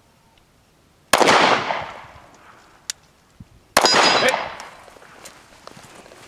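Two handgun shots fired one-handed, about two and a half seconds apart, each followed by a long fading echo; the second carries a metallic ring.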